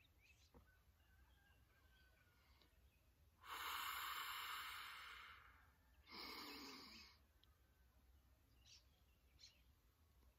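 Two deep, audible breaths: a long one that trails off over about two seconds, then a shorter one a moment later.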